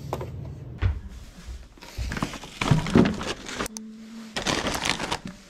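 Snack packets, ramyeon bags and drink cans being handled and set down on a table: light knocks and crinkling of plastic wrappers, with a short steady low tone just before the middle.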